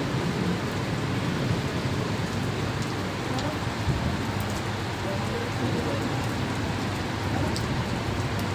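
Steady rain falling, a constant even hiss with a few faint sharp drop ticks.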